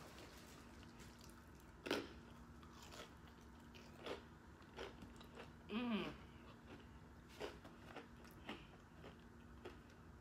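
Close-up chewing and biting of hard-shell tacos, with sharp crunches about two and four seconds in and several smaller crunches later. A brief voiced hum from the eater comes about six seconds in.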